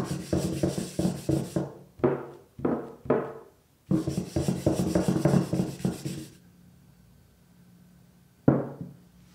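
Folded paper towel rubbed briskly back and forth over a wooden tray, buffing beeswax and oil sealing paste into the wood: quick scratchy strokes in runs, stopping about six seconds in. A single thump near the end.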